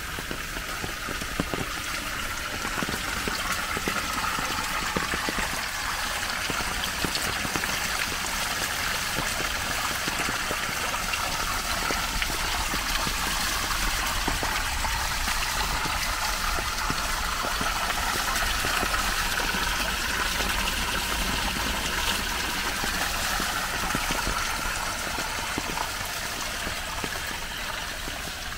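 Running water flowing steadily over the hiss of falling rain, growing louder through the middle and easing off again near the end, as of a stream or runoff being walked past.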